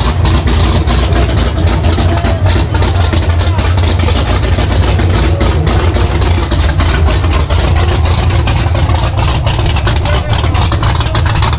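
Supercharged 427 LSX V8 with a big custom-grind cam, idling steadily and loud through open headers with a choppy, loping cam chop, during its first warm-up after the build.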